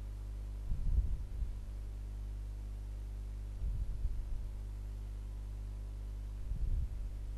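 A steady low electrical-sounding hum, with three short dull low thumps about three seconds apart.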